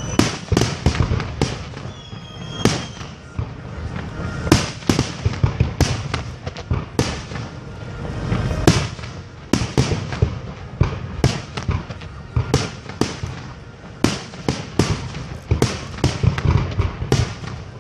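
Aerial firework shells bursting in quick, irregular succession: many sharp bangs and crackles a few per second, over a continuous low rumble.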